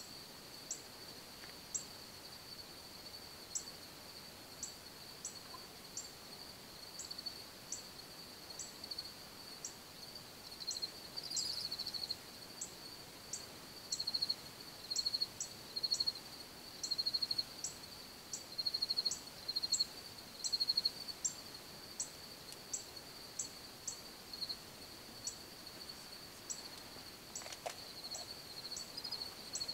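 Insects calling in woodland: a continuous high-pitched trill that pulses in louder bursts from about a third of the way in, over a string of short, sharp, higher ticks repeating roughly once a second.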